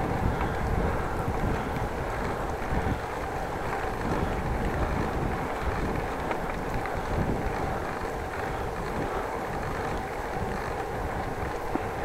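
Steady wind rushing over the microphone with the rumble of bicycle tyres rolling along a paved bike lane.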